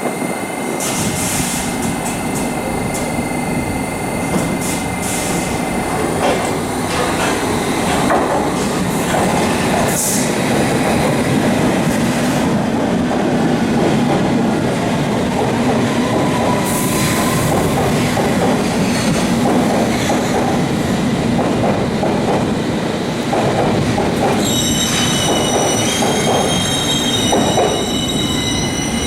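Passenger train running past, steady and loud, with wheel squeal setting in about 24 seconds in as several high-pitched tones at once.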